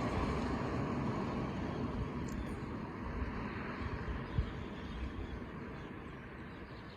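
Thunder rumbling and slowly fading away, with a short low thump about four and a half seconds in.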